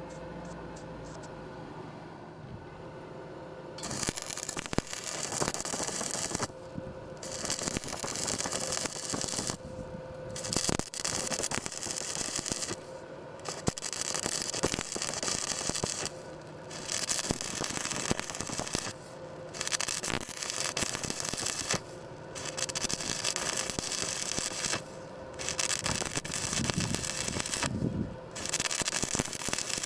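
Electric arc welding crackling and sizzling in a series of short welds, each lasting two to three seconds with brief pauses between. It starts about four seconds in after a quieter stretch with a faint steady hum.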